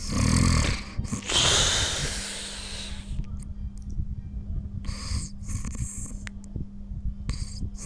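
Snoring: a loud, low rattling snore at the start, then a long hissing breath, followed by softer, shorter breaths about two and a half seconds apart.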